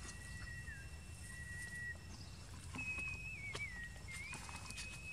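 Thin, high whistled animal calls, each held up to about a second with small steps and slides in pitch. They come over a few light crackles in dry straw.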